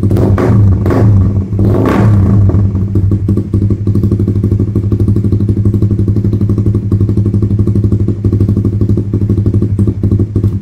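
Suzuki Raider 150 Fi single-cylinder engine through an open Vmax V37 exhaust: three quick throttle blips in the first two seconds, then a steady, loud idle.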